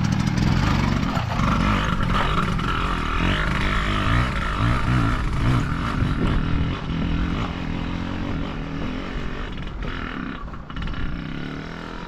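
Small motorcycle engine running while riding, growing a little quieter in the second half.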